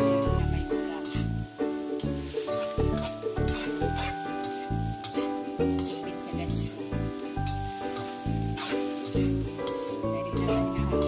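Egg fried rice sizzling in a wok as a metal spatula scrapes and tosses it, with many short scrapes, over background music with a melody and bass line.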